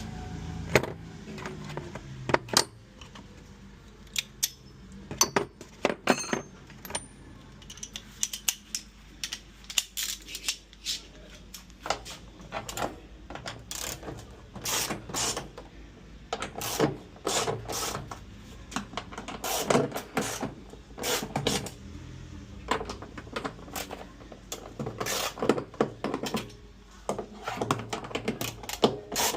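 Irregular metallic clinks, clicks and knocks of hand tools and metal parts being handled, dozens of short sharp strikes at uneven intervals.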